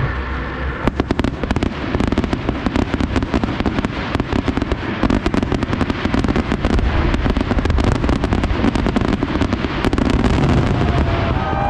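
Aerial fireworks going off in a dense, unbroken barrage of rapid bangs and crackles, starting about a second in.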